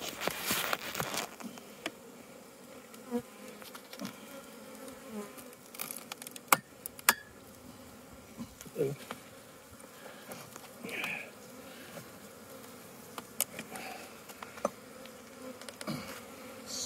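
Honey bees buzzing around an opened hive, with a scraping burst in the first second and a few sharp clicks later from a metal hive tool prying at the joint between the hive boxes.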